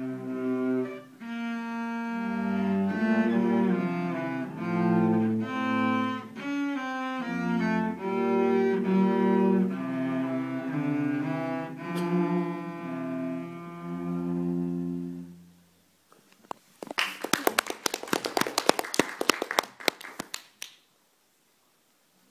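Two cellos playing a bowed duet, moving note by note and closing on one long, low held note. After a short pause, a few seconds of clapping follow.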